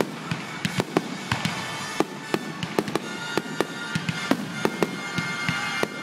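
Fireworks display: aerial shells bursting in a rapid, irregular string of sharp bangs and crackles, several a second.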